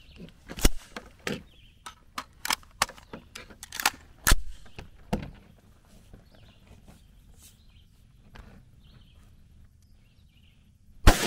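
A run of metallic clicks and clacks from an AR-style 300 Blackout rifle being handled for the first five seconds or so, then a single rifle shot near the end that rings out with a long echo and is the loudest sound.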